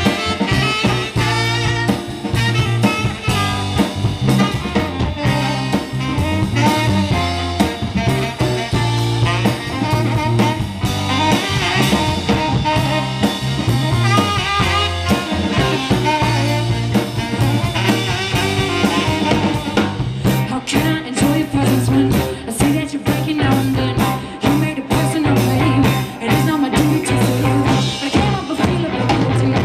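Live band playing with a drum kit, electric guitars and bass; the drumming turns busier, with more cymbal strokes, about two-thirds of the way through.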